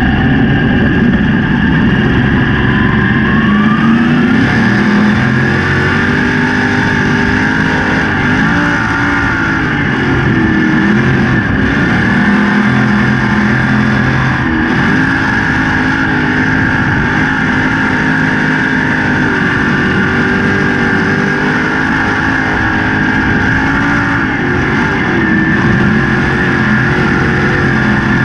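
305 sprint car's V8 engine running hard, heard from inside the cockpit. It runs loud and steady, and its pitch falls and climbs back several times as the driver lifts off and gets back on the throttle through the turns.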